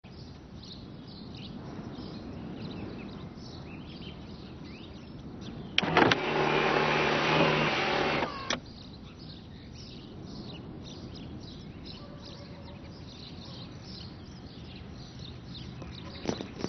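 A car's electric sunroof motor whirs steadily for about two and a half seconds, starting and stopping with a click. Birds chirp throughout, and there is a single sharp knock near the end.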